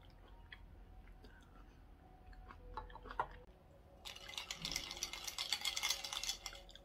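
A fork tapping and scraping on a dish, then, from about four seconds in, ice cubes clinking and rattling in a glass as it is lifted and tilted; the ice rattle is the loudest part.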